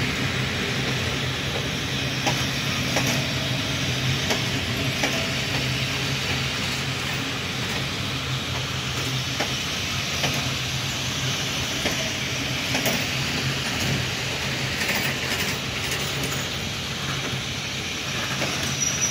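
Locomotive-hauled MÁV-Start passenger coaches rolling past, with a steady rumble, a low hum and wheels clicking over rail joints every second or few.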